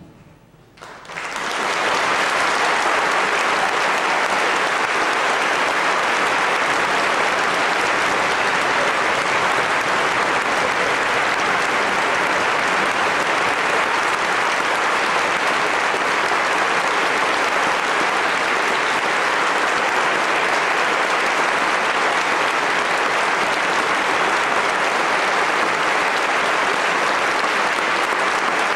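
Large audience applauding. The clapping breaks out about a second in after a brief silence and then holds steady.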